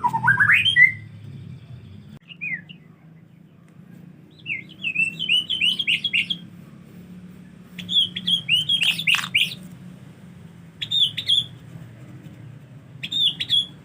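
White-rumped shama (murai batu) singing in short bursts of quick, gliding whistled notes, about six phrases with pauses of a second or two between them, over a steady low hum.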